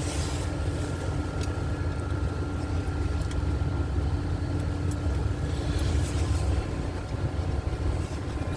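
A large engine runs steadily: a low rumble with a constant hum and a few light clicks.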